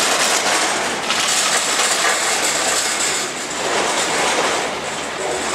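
Station machinery of a Poma eight-seat detachable gondola lift: cabin carriages clattering along the station rails and drive tyres as a cabin is launched onto the haul cable, a steady rattling rumble that swells and eases.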